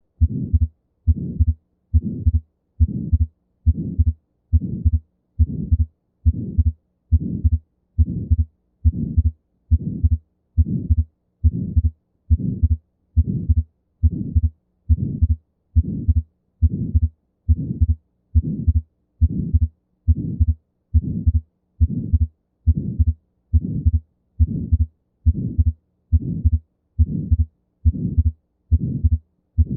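Heart sounds of an atrial septal defect: a regular heartbeat at about 73 beats a minute, each beat carrying the ejection systolic murmur and fixed split second heart sound typical of the defect.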